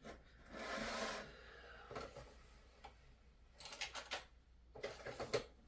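Handling noises: a brief rustle about half a second in, then a scatter of light clicks and taps near the end as a hobby knife and small 3D-printed plastic parts are picked up and handled.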